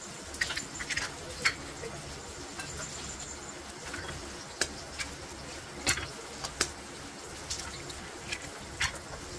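Eggs being cracked and broken open by hand over a glass bowl: scattered sharp shell cracks and taps, about ten in all, over a steady background noise.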